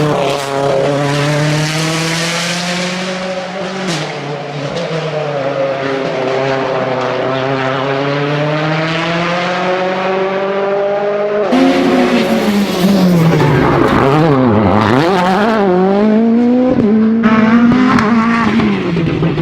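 World Rally Car engines running hard on a rally stage. For the first two-thirds a single engine note holds and bends slowly as the revs rise and fall; then, about two-thirds through, a louder car takes over with its revs swinging quickly up and down through gear changes and lifts.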